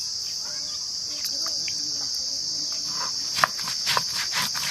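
Stone roller rubbing and knocking on a flat grinding stone (sil-nora), grinding ginger, cumin and green chilli into paste in quick strokes from about three seconds in. Behind it is a steady high chirring of insects.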